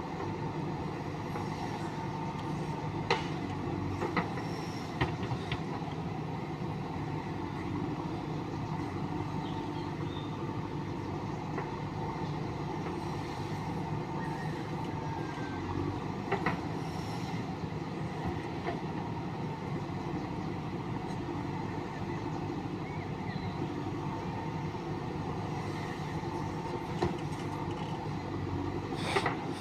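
Heavy diesel earthmoving machinery, a backhoe loader at work, running steadily with a constant drone, and a few sharp metallic clanks.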